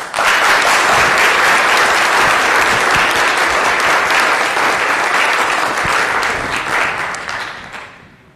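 Audience applauding, loud and steady for about seven seconds, then dying away near the end.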